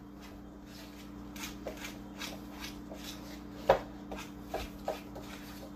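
A utensil stirring a thick mix of mashed chickpeas and tahini in a bowl: repeated scrapes and light clicks against the bowl, with one sharper knock about two-thirds of the way through. A steady low hum runs underneath.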